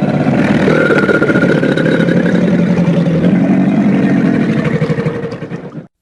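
Monster sound effect for a fictional crocodile–human hybrid: one long, rough, fast-pulsing growl that fades and cuts off near the end.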